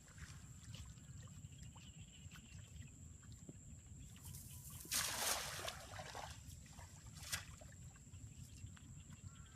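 A single splash of water about five seconds in that dies away over about a second, with a short click a couple of seconds later.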